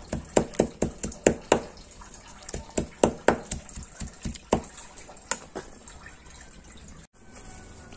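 Meat cleaver chopping whole raw fish, bones and all, on a wooden chopping board to mince it. Quick chops, about four a second at first, then slower and more irregular, dying out about six seconds in.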